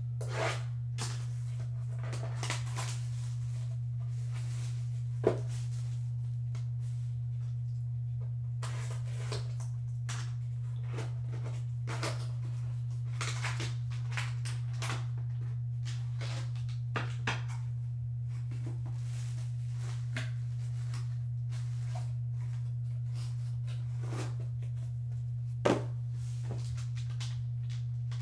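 Hands opening a small cardboard trading-card box and handling a foil card pack, heard as scattered small clicks and rustles, with two sharper knocks, one about five seconds in and one near the end. A steady low hum runs underneath throughout.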